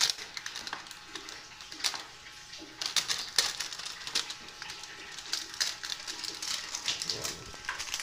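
Adhesive tape being peeled off a new refrigerator's power cord and cabinet, with crinkling plastic and sharp clicks. It is sparse at first and busier from about three seconds in.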